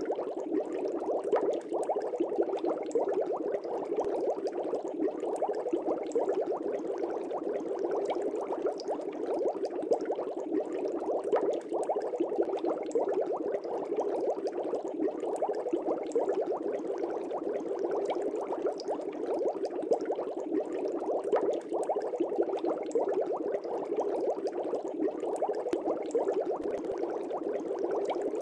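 Air bubbles streaming up through aquarium water, a steady dense bubbling with many tiny pops.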